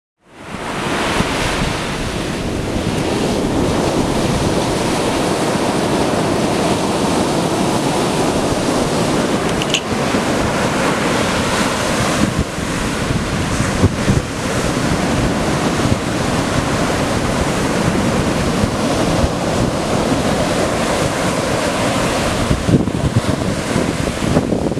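Ocean surf breaking and washing up a sandy beach, with wind rumbling on the microphone. It fades in at the very start, then runs steadily.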